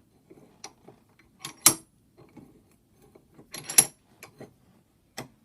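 Steel pipe being set and clamped in a bench vise: metal clanking and rattling, with two loud ringing clanks about two seconds apart among lighter clicks.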